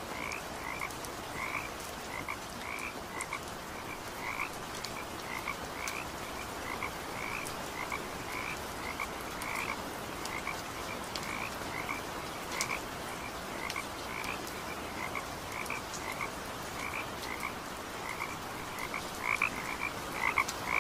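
Frogs calling: many short calls repeated a few times a second and overlapping, growing louder near the end.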